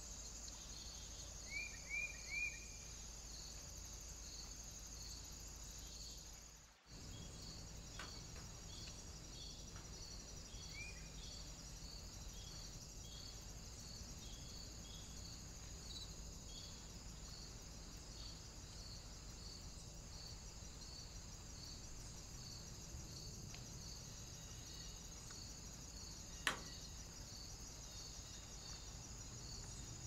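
Insects chirping steadily in woodland, a high trill with regular pulses. A few short bird chirps come about two seconds in, and there is a single sharp click near the end.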